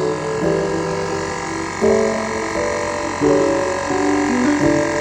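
Cordless portable tire inflator running with a steady electric buzz while it pumps air. Background music with chords changing about every second and a half plays over it.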